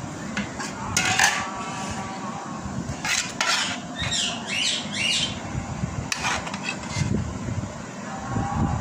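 Steel spoon clinking against a steel cooking pot and scraping through curry as food is ladled onto a plate. Sharp clinks come about a second in, around three seconds in and around six seconds in, with a run of short squeaky scrapes in between.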